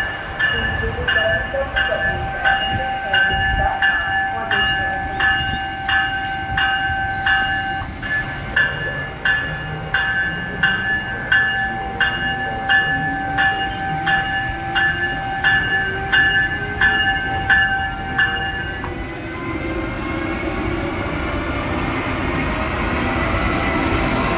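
Siemens ACS-64 electric locomotive's bell ringing steadily, about three strokes every two seconds, stopping about 19 seconds in. Under and after it, the locomotive's traction motor whine climbs steadily in pitch as it accelerates away.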